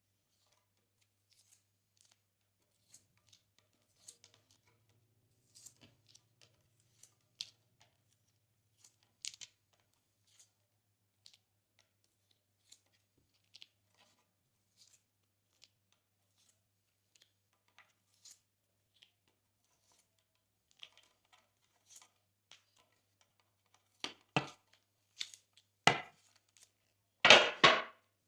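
Glossy slime being worked by hand: sparse soft clicks and small bubble pops, then a few louder crackling bursts near the end.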